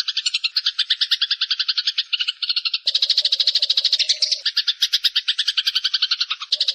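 Eurasian tree sparrows chattering: an unbroken run of rapid, harsh notes, about ten a second, with a second, louder layer of chatter joining about three seconds in.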